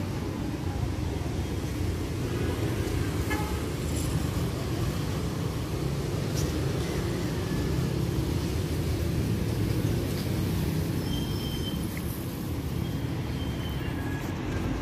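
Street traffic: a steady low rumble of motorcycle and car engines passing on the road. A few short high beeps come in during the last few seconds.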